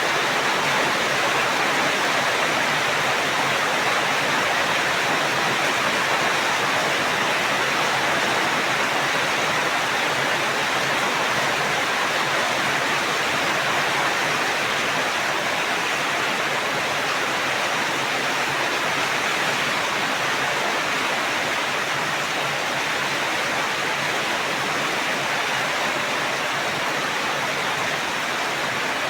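Steady heavy rain: a dense, even hiss with no single drops or thunder standing out.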